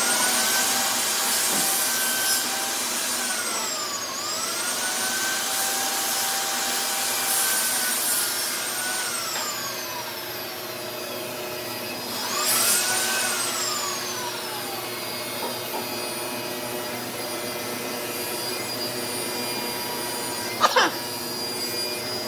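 A high-pitched electric motor whine that spins up, holds with a brief dip, and winds down, then spins up and winds down a second time; a couple of sharp knocks come near the end.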